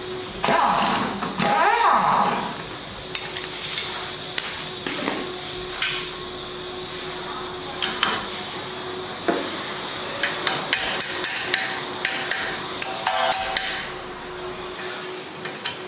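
Hammer and hand tools on the metal of a car's front suspension while a shock absorber is being freed. Two loud, longer clattering noises come near the start, then scattered knocks. From about ten seconds in there is a fast run of sharp metal strikes, several a second.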